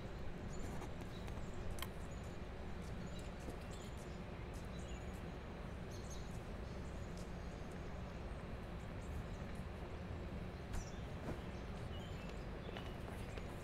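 Outdoor ambience: a steady low rumble of background noise with scattered faint, high bird chirps and a few small clicks.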